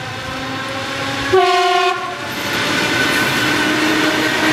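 ET2M electric multiple unit approaching and passing close. Its horn gives one short blast about a second and a half in, and the rolling noise of its wheels grows louder as the cars go by.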